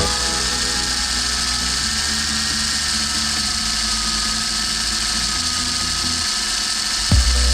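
A small high-speed power tool running steadily with a thin whine, typical of buffing or polishing brass.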